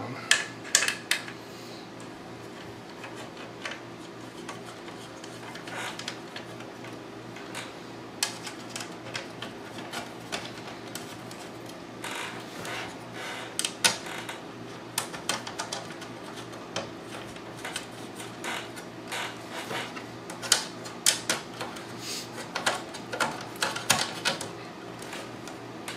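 Irregular clicks and light knocks of a Popcorn Hour media player's metal top cover being fitted back on and its thumb screws tightened. A steady low hum runs underneath.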